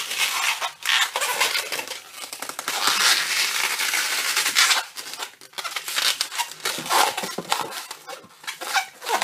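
Red 260Q latex modelling balloon being squeezed, rubbed and twisted by hand: a run of rubbery squeaks and rubbing, densest around the middle, with short breaks.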